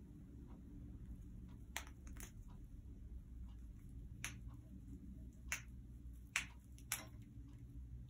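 Congo African grey parrot chewing at a hanging wood-and-corncob foraging toy: about six sharp, irregularly spaced clicks and snaps of beak on wood, the loudest a little past the middle, over a faint low hum.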